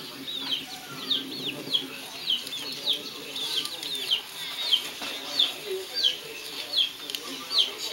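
Chickens calling: a steady run of short, high, falling peeps, about two or three a second, over low clucking.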